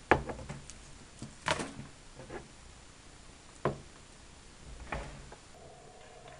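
Knocks and clatter of objects being handled on a desk close to the microphone: a handful of separate knocks, the loudest right at the start.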